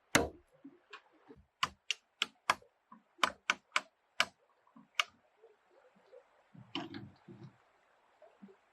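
Hammering on wood: a run of sharp, irregular knocks, two or three a second, thinning out after about five seconds, with one duller thud near seven seconds.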